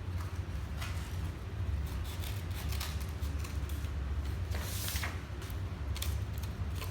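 Paper being handled and folded: scattered short rustles and taps, with one longer crinkle about five seconds in, over a steady low hum.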